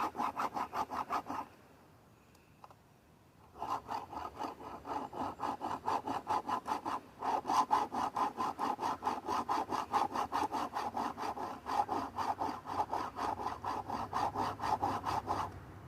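A round file rasping over chainsaw chain cutter teeth in quick, even strokes, about four a second, sharpening the chain. The filing stops for about two seconds near the start, then resumes and runs on with one brief break.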